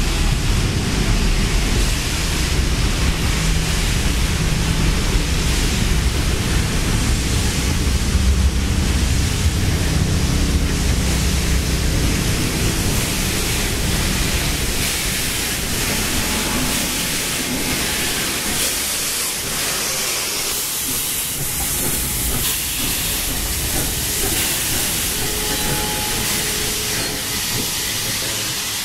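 A train of carriages pushed back by two steam locomotives, NSW 3237 and 5917, rolling past with a heavy low rumble of wheels on rail. About halfway through, as the locomotives draw level, the rumble thins and a steady hiss of escaping steam takes over.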